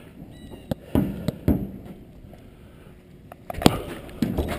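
A platform tennis rally: sharp knocks of the ball off the paddles and the deck. Several come about a second in, and the loudest comes near the end as a player swings.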